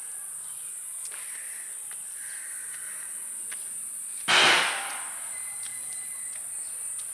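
Steady high-pitched insect chorus. About four seconds in, one loud, harsh sound cuts in for about half a second and fades.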